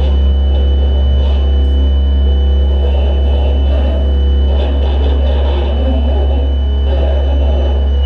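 Live experimental electronic noise music: a loud, deep, steady drone underneath, a thin high whistle held above it, and a shifting mid-range layer of many held tones.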